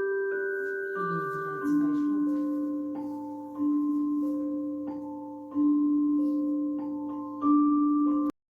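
A gentle alarm-style melody of soft mallet tones, like a vibraphone or marimba, with held notes whose chords change about every two seconds. It plays through the sunrise alarm clock's built-in speaker and cuts off abruptly near the end.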